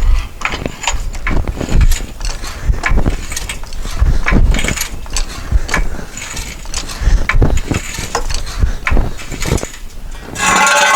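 Floor jack being pumped to lift the car: repeated mechanical strokes with knocks and clanks about once or twice a second. A brief metallic clatter near the end.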